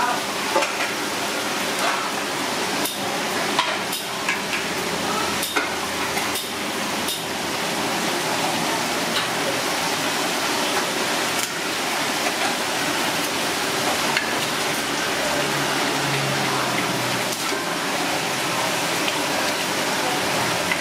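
Kitchen clatter: a steady hiss with scattered sharp knocks and clinks, heaviest in the first half.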